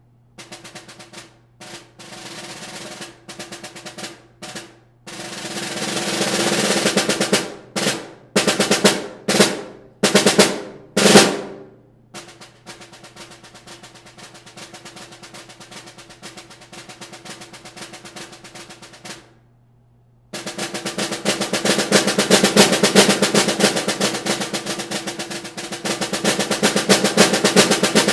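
Old Slingerland 5x14 snare drum with an Evans Dry head, played with sticks in a solo of rolls: short soft phrases, then several rolls that swell and stop short, a long soft roll, a brief pause, and a loud accented roll near the end.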